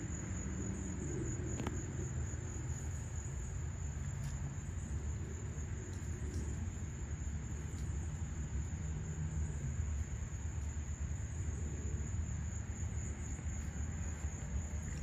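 Outdoor summer ambience: a steady high-pitched drone of insects, crickets or similar, over a low background rumble, with one sharp click about a second and a half in.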